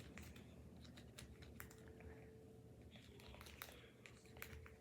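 Faint, irregular little clicks and taps of a small plastic spoon stirring a thick gummy-candy paste in a plastic Popin' Cookin' tray.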